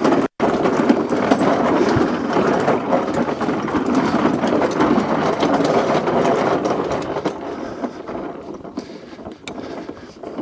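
A push lawn mower being wheeled over the ground, its wheels and deck rattling and clicking steadily, growing quieter over the last few seconds.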